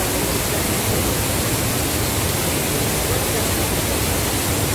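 Steady, loud rushing of a waterfall in flood: muddy floodwater pouring down a rock face and churning in the pool below.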